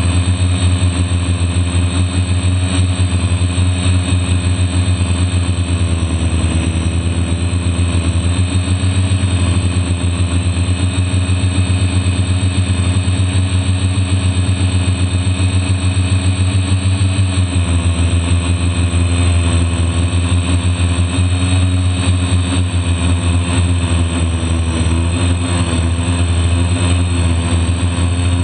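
DJI F450 quadcopter's brushless motors and propellers running in flight, picked up by the camera on the aircraft: a loud, steady, pitched drone. The pitch drifts a little as the throttle changes and steps down about two-thirds of the way through.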